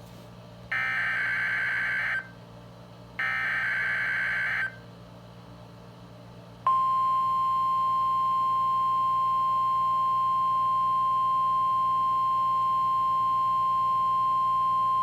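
Weather radio speaker (Midland WR120) sounding the NOAA Weather Radio required weekly test: two buzzy digital bursts of the SAME alert header, each about a second and a half long with a pause between, then about seven seconds in the steady, single-pitch warning alarm tone starts and holds.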